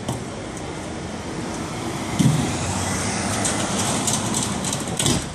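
Bus running, with a steady rumble and rattling. A low thump about two seconds in, after which it grows louder with a rapid high clatter, and another knock near the end.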